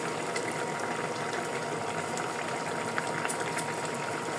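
A pot of food simmering on the stove: a steady bubbling hiss with small pops scattered through it.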